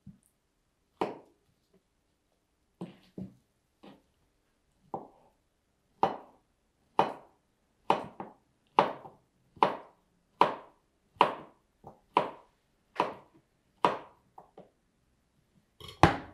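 Kitchen knife slicing a banana on a cutting board, the blade tapping the board with each cut. A few scattered taps come first, then a steady run of about one a second from around six seconds in.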